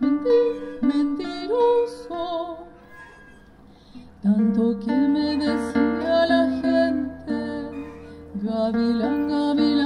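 Acoustic guitar picking single notes, dropping to a quiet pause, then about four seconds in a woman's voice comes in singing long, wavering notes without words over the guitar.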